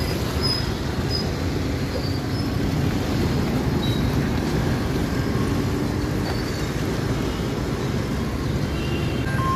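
Road traffic crossing a railway level crossing: motor scooters and small vans passing close by, a steady mix of engine and tyre noise.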